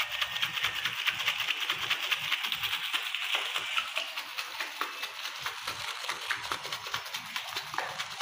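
A plastic bag of yogurt squeezed and kneaded by hand to beat the yogurt smooth, giving a dense, rapid crinkling of plastic that is louder in the first half.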